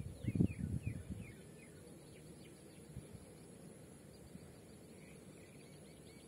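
Birds calling with short falling chirps, repeated a few times a second, over a faint steady high tone. A few low muffled thumps come in the first second and then stop.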